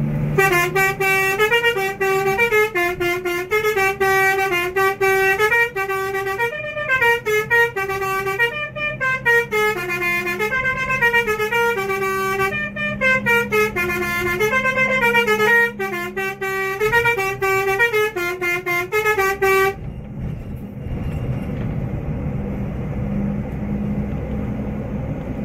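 Basuri multi-tone 'telolet' bus horn playing a fast up-and-down melody for about twenty seconds, then cutting off suddenly, leaving the bus's engine and road noise.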